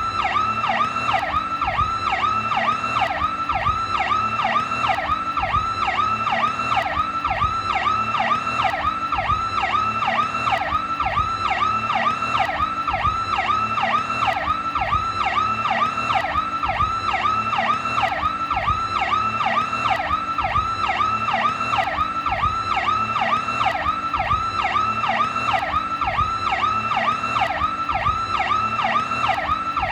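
Federal Signal PowerCall electronic police siren sounding continuously in a fast rising-and-falling yelp, about three to four sweeps a second, steady and unbroken.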